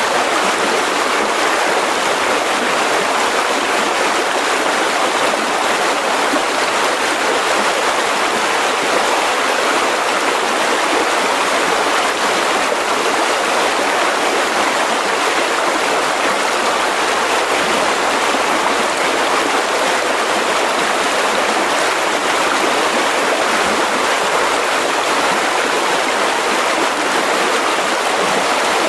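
Mountain river rushing over rocks in a steady, even roar of water.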